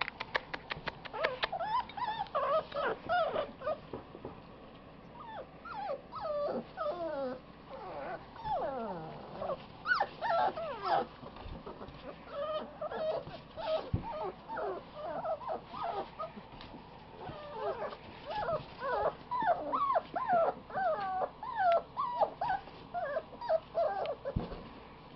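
Five-week-old puppies whimpering and whining in many short, high calls that glide up and down and often overlap. There are brief lulls about five seconds in and again a little before halfway.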